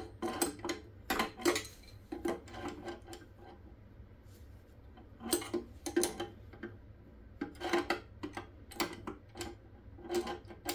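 Adjustable (crescent) wrench clinking against a threaded fitting as it is fitted and tightened. The sound is a series of sharp metal clicks in scattered clusters, with short pauses between them.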